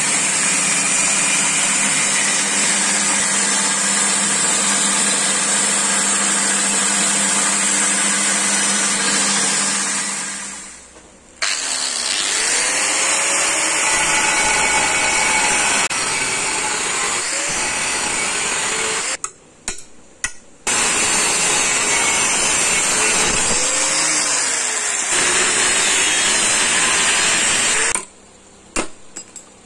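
Belt grinder running with a steel blade held against the belt, a steady motor tone under the grinding. It fades out about ten seconds in. After that another power tool works the blade, its pitch dipping and recovering now and then, with two short breaks.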